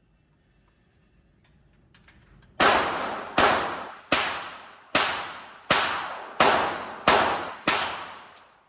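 Eight gunshots fired at a steady pace, about one every three-quarters of a second, each loud crack trailing off in a ringing echo.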